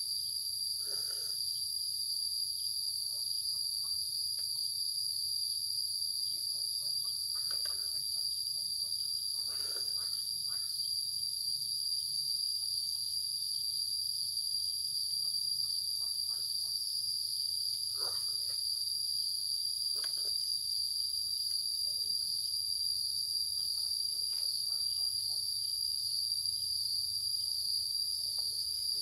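Steady, shrill insect chorus holding two high, unbroken tones without a pause.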